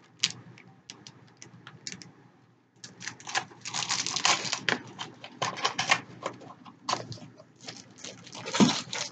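Crinkling and crackling of packaging being handled: a plastic bag and a small cardboard blind box being fingered and opened, in an irregular string of clicks. It thickens after about three seconds, with the loudest rustle near the end.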